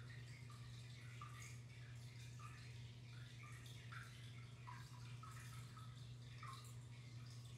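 Faint trickling and dripping of aquarium water, with many small irregular plops of bubbles and drips, over a steady low hum.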